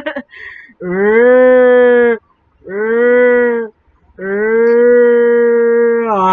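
Scary sound effect of long, moo-like moaning calls: three held, steady-pitched calls, each swelling up in pitch at the start and lasting one to two seconds, with short gaps between them.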